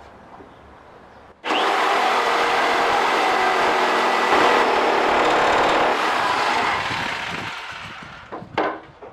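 Electric jigsaw starting up about a second and a half in and cutting through a hardwood board with a steady, loud buzz of motor and reciprocating blade. Around six seconds in the cut ends and the sound fades away over about two seconds as the saw winds down.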